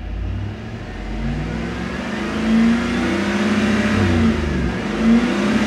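2006 Chevy Tahoe's 5.3-litre V8 revving at wide open throttle, its pitch climbing from about 1,000 rpm up to the 4,000 rpm fuel cutoff, then wavering at that limit, heard from inside the cab. The run-up is the crankshaft position variation relearn, done after an engine and harmonic balancer replacement.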